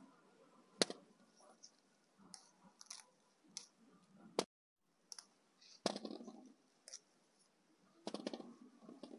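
Irregular soft clicking with several sharp, separate knocks, a cluster of them near the end, and a brief gap in the sound about halfway through.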